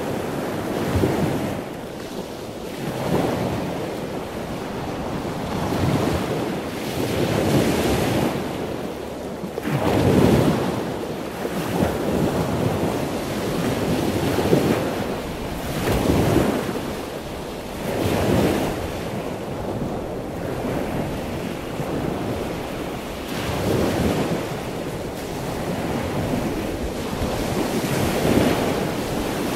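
Sea waves breaking and washing up the shore, one surge of surf every two to three seconds.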